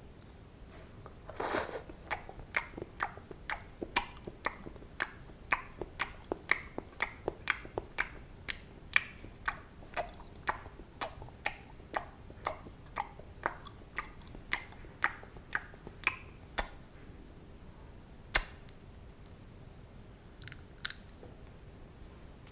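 Chewing gum, close up: a steady run of sharp, wet clicks about two a second, which stops about sixteen seconds in, followed by a few scattered clicks.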